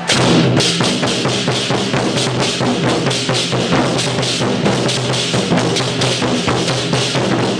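Several large Chinese-style barrel drums beaten hard with sticks by a drum troupe playing together, a fast, dense stream of strokes with no let-up.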